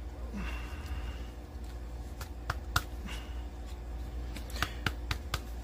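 Trading cards being handled: a short scrape as a card slides into a rigid plastic top loader near the start, then a scatter of light clicks and taps as a stack of cards is squared up in the hands.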